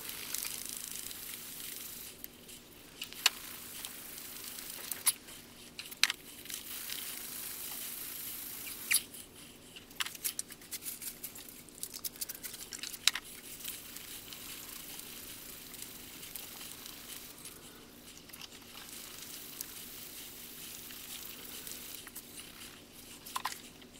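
Wet-and-dry abrasive paper rubbing on the steel head of a ball peen hammer held in a vice: a steady scratchy hiss with sharp clicks and taps scattered through it.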